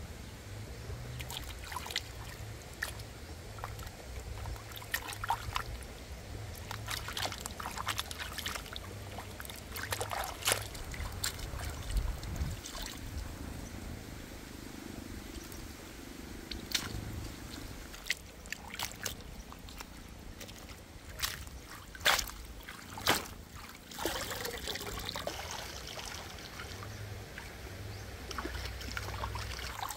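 Shallow stream trickling over stones, with splashing and sloshing as vegetables are washed by hand in the water. Scattered sharp clicks and knocks, two louder knocks near the end.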